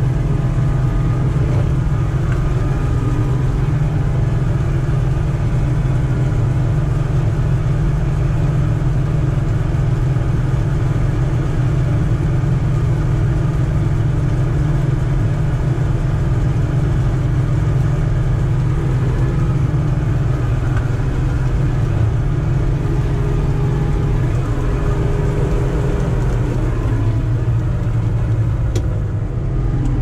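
Combine harvester running steadily at work in an oat field: a deep, even engine drone with steady machinery hum above it, unchanging throughout.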